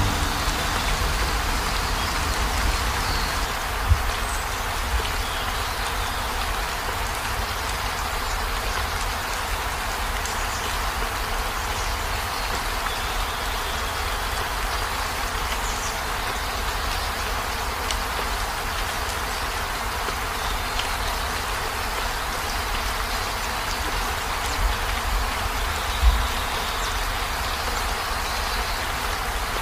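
Steady, even hiss of outdoor background noise with a low rumble beneath, and a couple of soft thumps about four seconds in and near the end.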